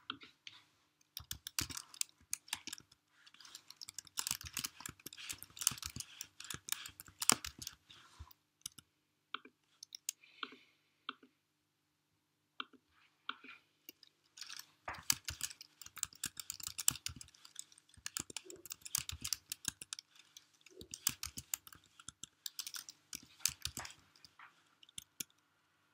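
Typing on a computer keyboard, with mouse clicks, in quick irregular runs of keystrokes and a short pause about halfway through.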